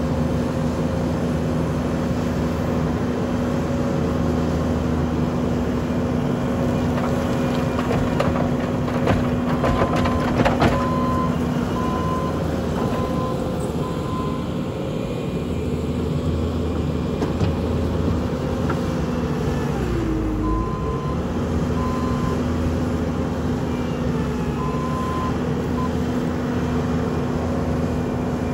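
Bobcat T770 compact track loader's diesel engine running steadily, its pitch dipping briefly about two-thirds of the way through as it takes a load. A high beeping alarm sounds in short repeated bursts several times, and there are a few metallic clanks near the middle.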